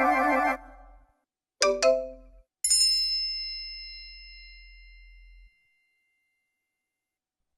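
Three short iPhone alert tones in a row. First a brief chime, then a quick two-note tone, then a single bell-like ding that rings out and fades over a few seconds, followed by silence.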